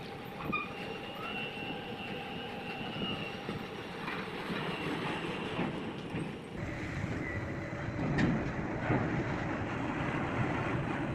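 Port grab crane working a clamshell grab of sulphur: the crane's machinery running steadily, with a thin high metallic squeal in the first few seconds and a few sharp metallic clanks. The noise grows louder and fuller about two-thirds of the way in, as the grab is swung over the hopper and dumps its load.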